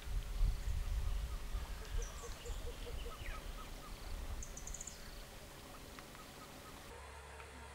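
Birds calling over an uneven low rumble: a quick run of about six short notes, a few higher notes and two brief bursts of high chirps. About seven seconds in, it all gives way to a steady low hum.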